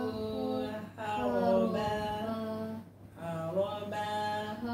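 Quranic recitation in Arabic, chanted melodically with long held notes that glide between pitches. It breaks briefly about one second in and pauses for breath about three seconds in.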